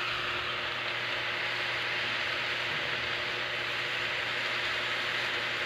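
Steady hiss of diced sponge gourd sizzling as it sautés in a wok.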